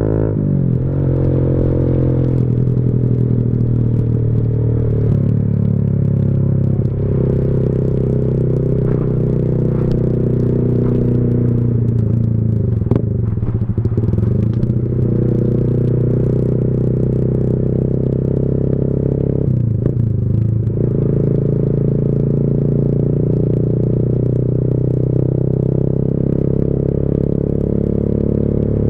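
Motorcycle engine running through a Leo Vince GP Corsa Shorty slip-on exhaust while being ridden, loud and full-toned. The engine note falls just after the start and shifts again about halfway through and about two-thirds through as the throttle changes.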